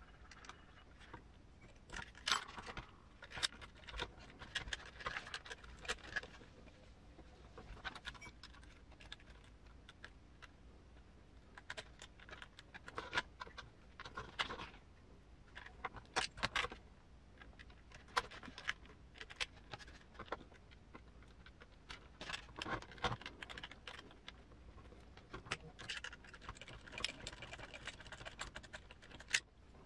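Small metal parts and tools clinking and clicking in irregular clusters as a scale RC truck's leaf spring pack is worked on by hand.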